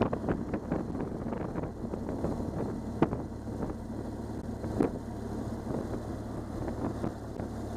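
BMW R1200GS Adventure's boxer twin engine running steadily at road speed, with wind rushing over the camera microphone. Many short knocks of wind buffeting and road bumps break through, the sharpest about three seconds in and again just before five seconds.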